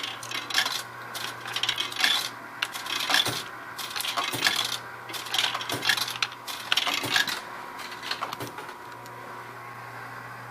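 Coins being fed into a snack vending machine and clinking down through the coin mechanism: a quick run of metallic clicks and clinks that stops about eight and a half seconds in, over a low steady hum.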